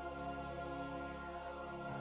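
Slow ambient background music of held, sustained chords.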